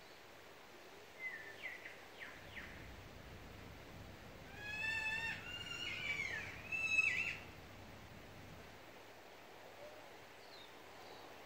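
Bird calls: a few short chirps, then a louder run of quick pitched notes for about three seconds around the middle, over faint outdoor background noise.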